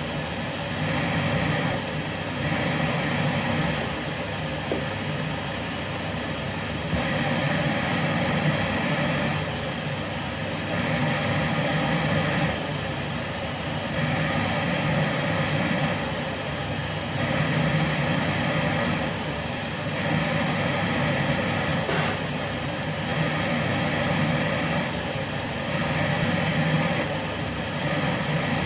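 Vacuum cleaner running steadily, its loudness swelling and easing every two to three seconds, with a thin high whistle that comes and goes.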